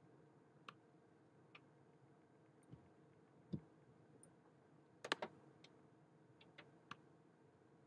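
Faint computer mouse clicks, scattered one at a time, with a quick cluster of clicks about five seconds in and a soft low thump a little past the middle, over near silence.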